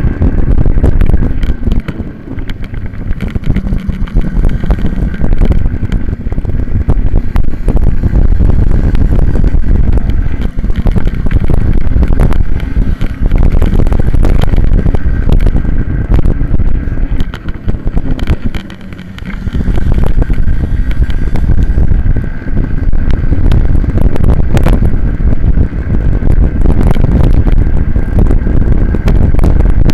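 Onboard sound from a racing minibike: the engine running hard under heavy wind buffeting on the camera microphone, dropping away briefly a little past halfway.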